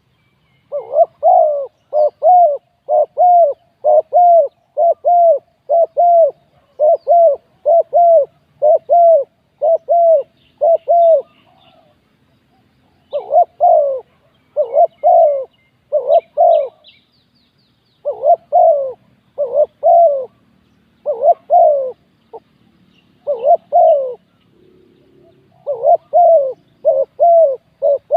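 Spotted dove cooing: short, even coos at about one and a half a second, in runs broken by pauses of a second or two, with faint chirps of small birds behind.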